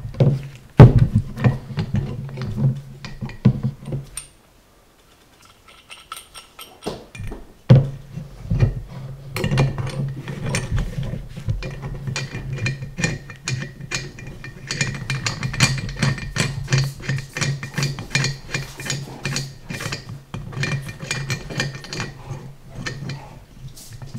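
Metal clicking, clinking and knocking as a small engine cylinder head is handled and its valve springs and retainer caps are fitted by hand, with a short near-silent pause about four seconds in.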